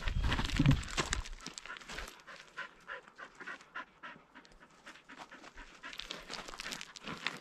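Dog panting in quick breaths, with footsteps on a rocky, gravelly trail.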